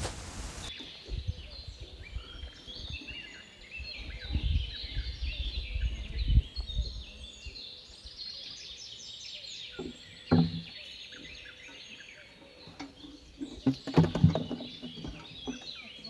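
Birds chirping busily with many short, quick notes, over a low rumble and a few brief, louder low sounds.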